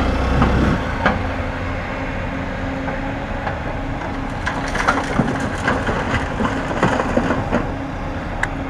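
An engine running steadily, with irregular crunching and cracking over it.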